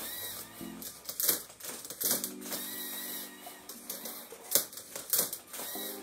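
LEGO SPIKE Prime robot mechanism at work on a Rubik's cube: its motors whirring through their gearing in spells, with sharp plastic clacks every second or so as the cube is gripped, flipped and its layers turned.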